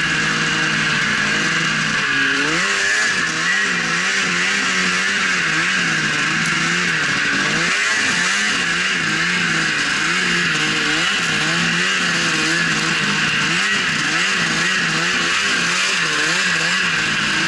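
Snowmobile engine running under way, its pitch rising and falling again and again with the throttle, over a constant hiss.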